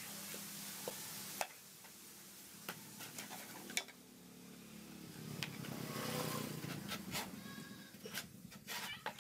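A curved knife chopping and scraping into the thick, fibrous husk of a dry coconut, giving scattered sharp knocks at an irregular pace. In the middle a louder, unidentified sound swells up and fades away over a couple of seconds.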